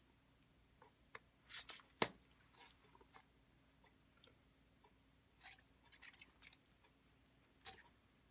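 Rubber-gloved hands handling a small plastic vial of dye powder: quiet scattered clicks and rustles as the cap is twisted off, the powder tipped out and the cap put back. The sharpest is a single click about two seconds in.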